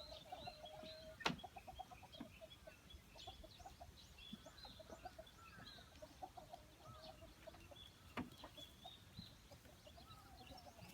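Faint clucking of chickens with small birds chirping, and two sharp knocks, one about a second in and another near eight seconds.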